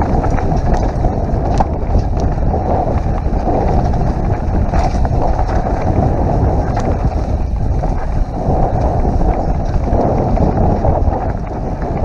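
Wind buffeting the microphone of a camera on a mountain bike riding fast down a dirt singletrack, over a steady rumble from the tyres on the trail. Scattered clicks and rattles come from the bike over the bumps.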